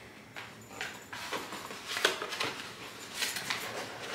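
Cardboard shipping box being handled and opened: irregular rustling, scraping and light knocks, with a few sharper clicks about two and three seconds in.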